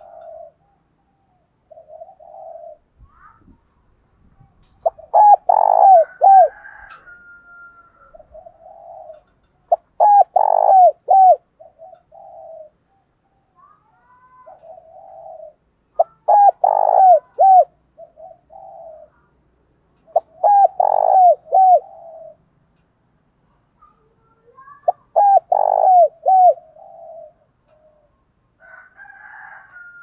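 Spotted dove cooing its song over and over: a loud phrase of several coos about every five seconds, with softer single coos in between.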